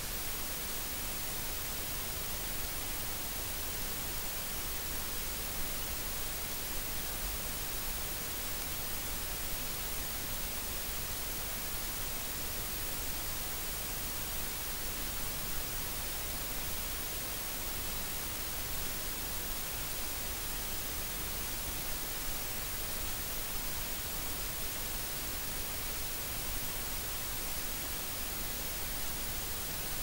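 Steady white noise: an even, unchanging hiss.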